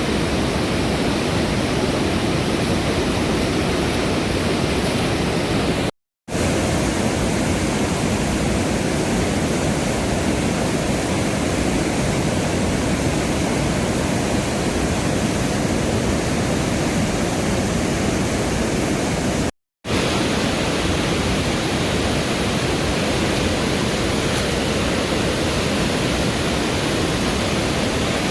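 Steady rush of a fast mountain river, an even wash of water noise that drops out briefly twice at edits.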